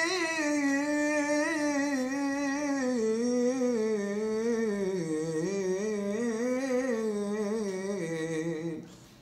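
A man chanting the Torah reading in the Constantine (Algerian Jewish) cantillation tradition, drawing out one long, wavering, ornamented melisma. The line slowly sinks in pitch and breaks off shortly before the end.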